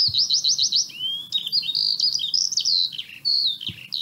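Birdsong: quick runs of high chirps, with a rising whistle about a second in, then varied short whistled phrases.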